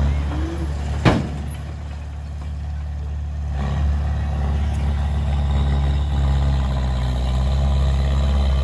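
Heavy construction-vehicle diesel engine running steadily, with one sharp knock about a second in; the engine gets louder about three and a half seconds in.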